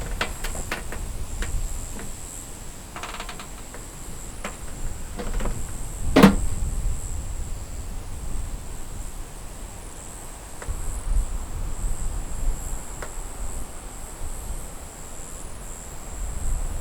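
Night insects, crickets, trilling steadily in one high band, with gusts of wind buffeting the microphone. A few light clicks and one sharp knock about six seconds in.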